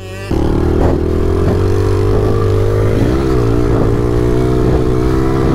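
2013 Yamaha TT-R110 pit bike's small four-stroke single-cylinder engine running at high, fairly steady revs under throttle. It picks up after a brief lull at the very start, and the revs dip and recover about three seconds in.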